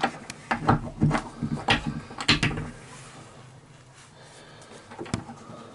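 Wooden slatted shower seat being folded back up against the bulkhead and secured with a metal pin: a quick run of wood-and-metal knocks and clicks over the first two and a half seconds, then a single knock about five seconds in.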